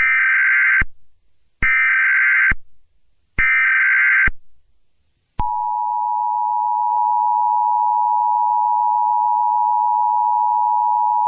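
Emergency Alert System broadcast tones: three identical bursts of SAME header data tones, each just under a second long with short gaps between, then about five seconds in the steady two-tone EAS attention signal begins.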